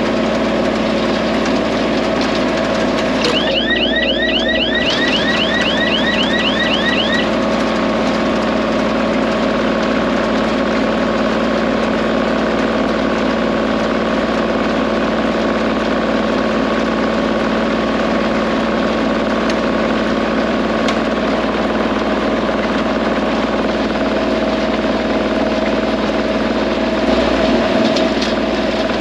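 Kubota tractor's diesel engine running steadily. A few seconds in, a quick series of short rising chirps sounds over it for about four seconds.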